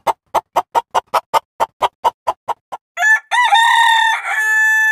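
A fast, even run of short pulses, about five a second, fading out, then a rooster crows once, ending on a long held note.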